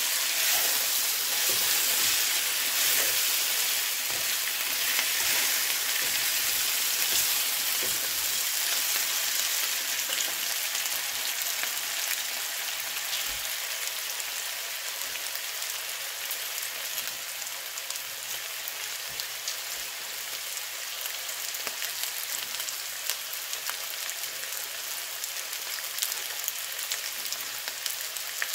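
Sliced potatoes, onions and green peppers sizzling and crackling in a frying pan, stirred with a spatula at first. The sizzle gradually grows quieter, with scattered pops.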